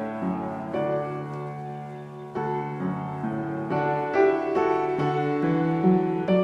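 Slow background piano music, single notes and chords ringing on one after another.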